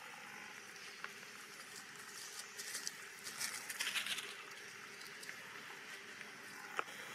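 Quiet outdoor ambience with a patch of crackly rustling about three to four seconds in and a single sharp click near the end.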